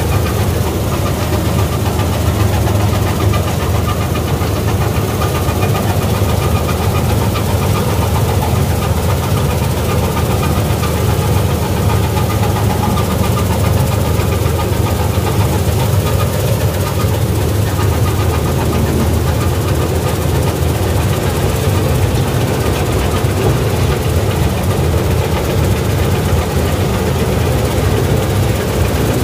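Gill 961 combine harvester running steadily under load as it cuts wheat: the engine's even, loud drone together with the noise of the reel, cutter bar and threshing machinery.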